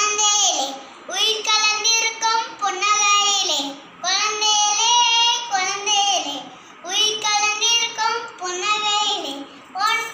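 A young girl singing solo without accompaniment, in phrases of a second or two separated by brief pauses for breath.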